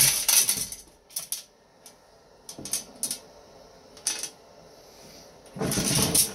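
Loose machine screws clinking and rattling against the inverter's steel sheet-metal case as it is tipped and moved. Scattered short metallic clicks give way to a louder, longer clatter near the end.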